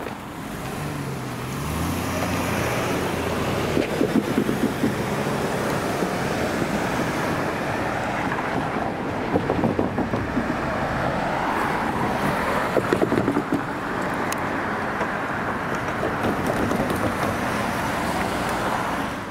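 Road traffic passing on a busy street: a steady rush of car tyres and engines that swells a few times as vehicles go by.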